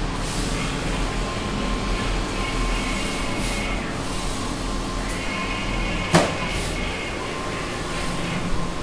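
Large-format inkjet printers running: a steady mechanical hum, with a whine from the moving print-head carriage that comes and goes twice. There is one sharp click about six seconds in.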